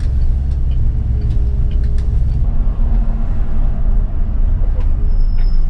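City bus engine running with a steady low drone, heard from the driver's cab, with scattered light clicks and rattles. A brief high beep sounds near the end.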